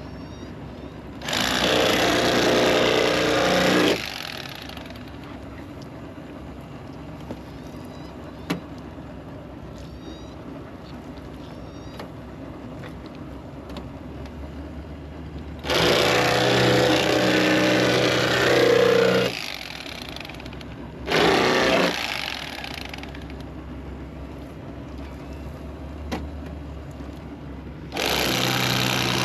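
A small electric motor, some motor-driven appliance, switched on in four short runs of about one to four seconds each, with quieter background between the runs.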